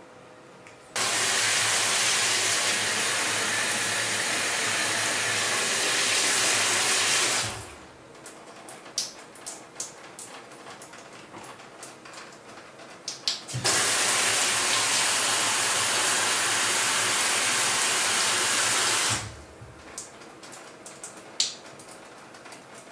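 Water spraying from a Nitori push-off shower head. Two spells of about six seconds each start suddenly, the first about a second in and the second near the middle, with small clicks and drips in the pause between them.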